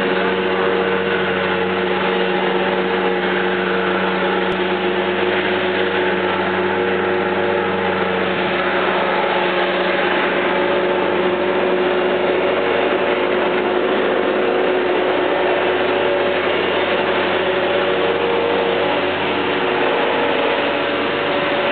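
Bobcat skid-steer loader engine running steadily, a constant drone with a steady higher-pitched whine over it.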